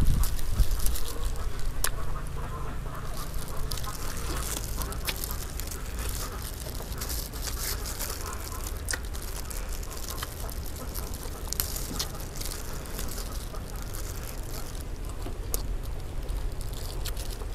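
Close-up eating sounds: chewing and lip-smacking on roast chicken, scattered short wet clicks, over a steady low hum.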